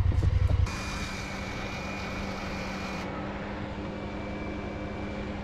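Honda Pioneer 1000 side-by-side's parallel-twin engine idling steadily, heard close to the front of the machine. A loud low rumble fills the first moment and cuts off under a second in.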